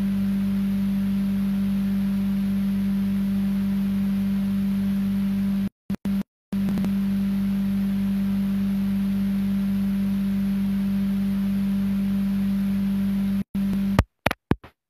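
Steady electrical hum: one loud, unchanging low tone with a buzz and hiss under it, standing in for the lecture audio. It cuts out to dead silence for moments a little before halfway and again several times near the end, like a signal or recording fault.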